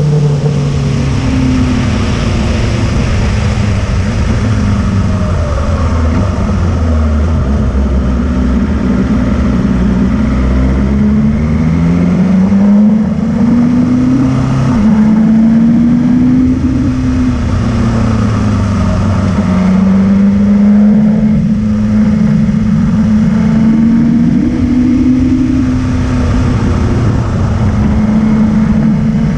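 Motorcycle engine pulling up a winding climb, its note repeatedly rising and then dropping back as the rider works the throttle and gears, under a steady rush of wind noise.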